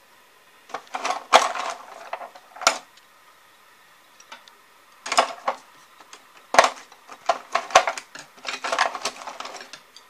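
Rummaging through a kitchen cutlery drawer: chopsticks and metal cutlery clatter and clink against a plastic tray in three bursts of clicks, with short pauses between.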